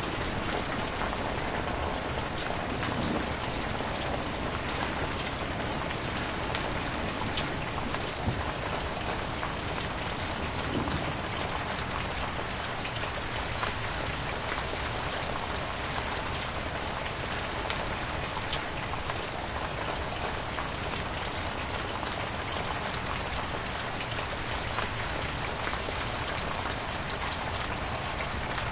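Heavy rain falling steadily: a dense, even hiss of drops with scattered sharper drop hits.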